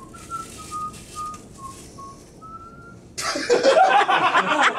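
A person whistling a short tune of about seven separate notes. About three seconds in, a sudden loud burst of noise cuts in and drowns it out.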